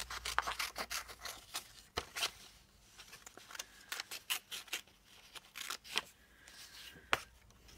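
Scissors snipping paper, a quick run of snips followed by scattered clicks and paper rustles as a printed motif is cut out by hand.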